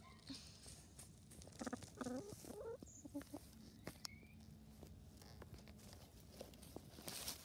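Brown hens giving a short run of clucks about two seconds in while they peck at food on the grass, with a few faint clicks.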